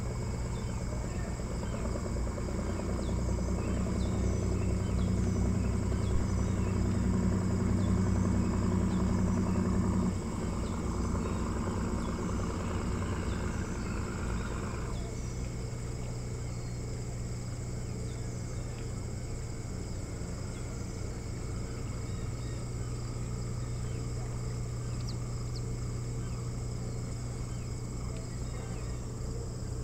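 Outdoor ambience: a steady low hum with a distant motor running in the first half, dropping away about ten seconds in and fading out around fifteen seconds, over faint high chirping of insects.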